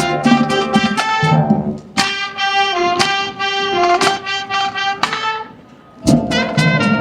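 High school marching band playing, with horns over drum hits. The band cuts off briefly about five and a half seconds in, then comes back in together.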